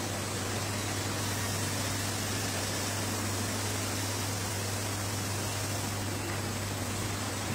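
Steady low machinery hum under a constant hiss, unchanging throughout, with no distinct knocks or handling sounds.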